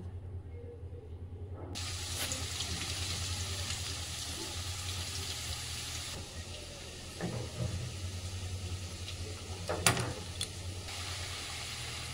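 Potato chunks frying in hot oil in a wok: a steady sizzling hiss that starts suddenly about two seconds in, with a low hum underneath. A metal spatula knocks once against the wok about ten seconds in.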